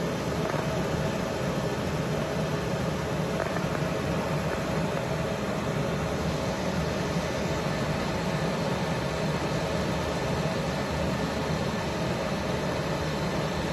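CO2 laser marking machine running while it marks wood: a steady whir of cooling-fan noise with a faint, constant hum underneath.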